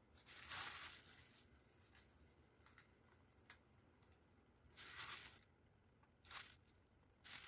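Dry crushed graham cracker crumbs rustling and crunching as a hand spreads and presses them in a plastic tub. There is one longer burst of about a second at the start, then three shorter ones in the second half.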